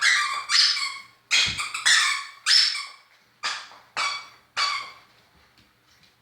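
A small dog barking in a quick series of high-pitched yips, about eight barks at roughly two a second, each sharp at the start and fading quickly.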